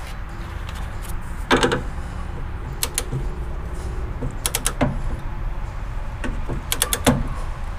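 Torque wrench ratcheting a suspension nut tight in short runs of sharp clicks, four bursts in all, over a low steady hum.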